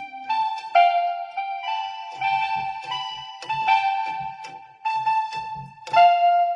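Electronic keyboard playing a melody of held single notes in an electric-piano sound, with soft low pulses underneath.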